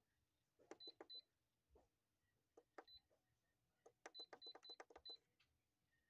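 Buttons on an Electriq dehumidifier's control panel being pressed in three quick runs: faint clicks, most of them answered by a short, high beep from the unit.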